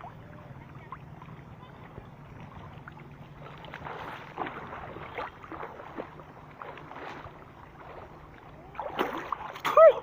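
Water splashing and sloshing in irregular strokes as a person swims, over a steady low hum.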